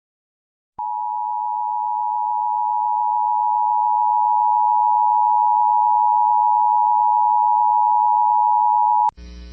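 Emergency Alert System attention signal: a steady two-tone alarm starting about a second in, lasting about eight seconds and cutting off abruptly, announcing a severe thunderstorm warning. A low electrical buzz starts just after it ends.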